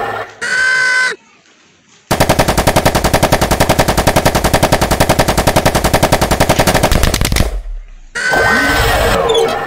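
Sound effects for a car-mounted multi-barrel machine-gun turret. A brief motor whir as the turret moves is followed, about two seconds in, by a continuous burst of rapid, evenly spaced gunfire lasting about five seconds. Near the end comes more motor whirring with shifting pitch.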